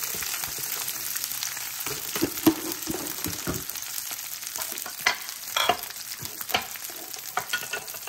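Garlic cloves and dried red chillies frying in oil in a stainless steel pan: a steady sizzle with scattered sharp pops and crackles.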